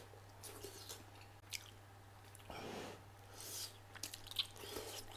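A man chewing and eating pieces of squid roll, soft chewing with a few short, sharp mouth noises.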